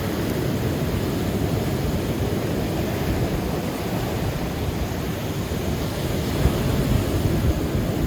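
Rough, typhoon-driven surf breaking and washing on the shore in a continuous rush that swells a little near the end, with wind rumbling on the microphone.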